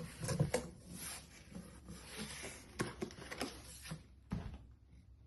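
Packaging being handled during an unboxing: irregular rustling, with light taps and knocks.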